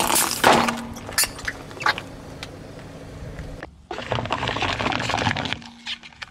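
A car tyre rolling slowly over a squishy rubber toy and long water balloons, with scattered sharp cracks and crackles. After a short break a little under four seconds in, the tyre crushes a row of paper coffee cups with a dense crunching that dies away near the end.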